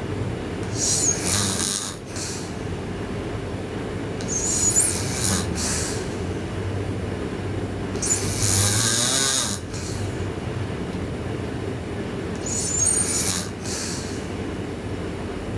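A sleeping girl snoring loudly, four long snoring breaths about four seconds apart over a steady low hum.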